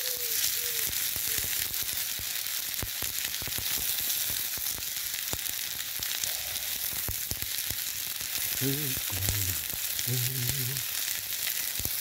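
Sausages and potato sizzling in hot oil in a Petromax SP32 wrought iron skillet: a steady frying hiss with scattered spits and pops.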